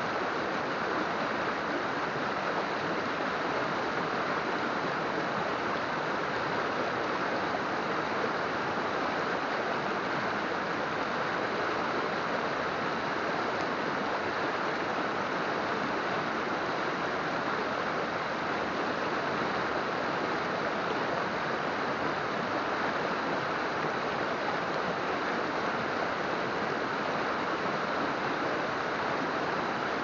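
Mountain river water flowing in a steady, unbroken rush with no pauses or single splashes.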